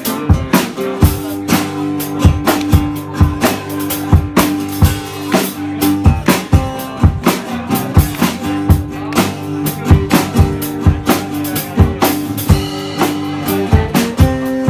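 Live band music: a drum kit keeping a steady beat under a strummed acoustic guitar.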